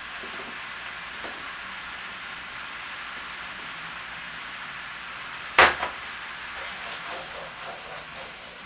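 Chicken pieces sizzling steadily in a pan of white wine and lemon sauce. There is one sharp knock a little over halfway through.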